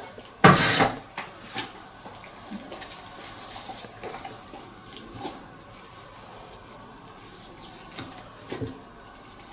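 Fork stirring a wet stuffing of sausage meat, courgette flesh and raw egg in a plastic bowl: soft squelching with scattered light clicks of the fork on the bowl. A loud, brief noisy sound comes about half a second in.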